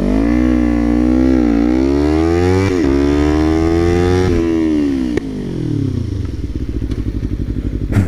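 Kawasaki Ninja 300 parallel-twin engine with a Yoshimura full exhaust under hard acceleration. The revs climb, there is a quick gear change about two and a half seconds in, and the revs climb again. Just past four seconds the throttle closes and the revs wind down to a low, pulsing run.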